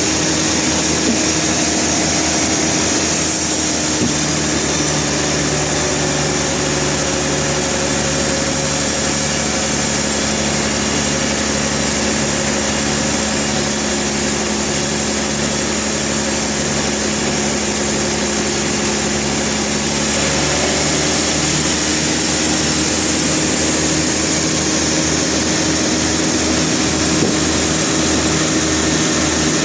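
Sawmill machinery running steadily, an engine-driven hum with a low pulsing beneath it. Its tone shifts about four seconds in and again about two-thirds of the way through.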